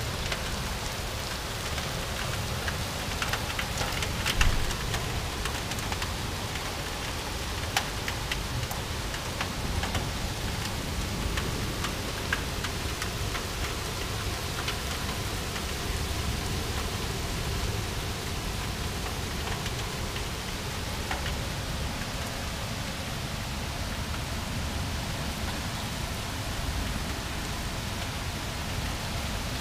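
Heavy thunderstorm rain pouring down steadily, with scattered sharp taps of drops striking nearby surfaces, a small cluster about four seconds in.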